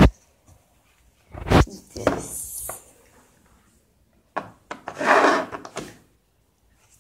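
Handling noise of a phone and things being moved on a desk: a few knocks with spells of rubbing and scraping, about two and five seconds in.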